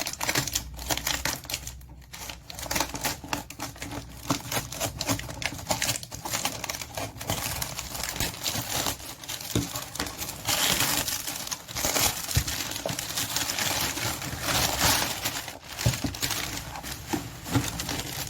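Crinkling and rustling of something being handled close by, with many scattered small clicks and taps, and louder rustling stretches about ten and fifteen seconds in.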